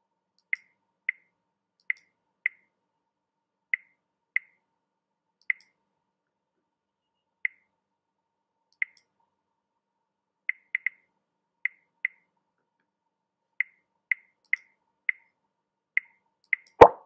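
A series of short, high electronic blips like water drops, coming irregularly about once a second, then a much louder, deeper plop near the end.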